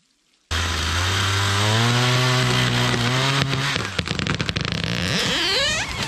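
Two-stroke chainsaw running hard, its pitch climbing slightly as it finishes the felling cut. About three and a half seconds in, the engine note drops away and a run of sharp cracks and snaps follows as the tree breaks off its stump and goes down.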